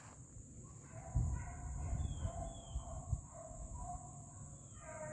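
Beagles baying as they run a rabbit's trail: a string of drawn-out bawls from about a second in, with another near the end, over a steady high insect drone. A couple of low thumps on the microphone.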